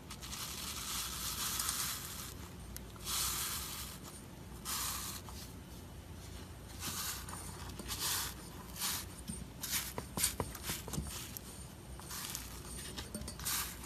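Iceberg slime being pressed and squeezed by hand, its dried crust crackling in repeated bursts of crinkly hiss, with a few sharp clicks about ten seconds in.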